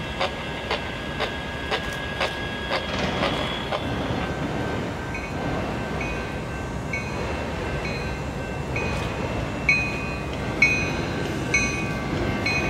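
Approaching freight train: a steady distant rumble of rail noise. Over it there is a rhythmic ticking about twice a second for the first few seconds, then from about five seconds in a short ringing that repeats about twice a second.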